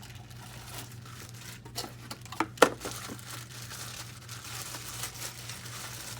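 Unboxing packaging being handled: crinkling and tearing of plastic wrap and cardboard, with a few sharp clicks about two and a half seconds in, one of them loud. A steady low hum runs underneath.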